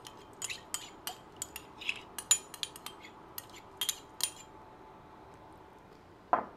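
Metal spoon scraping and tapping tomato paste out of a small ceramic ramekin: a quick, irregular string of clinks for about four seconds. Near the end comes a single louder knock as the ramekin is set down.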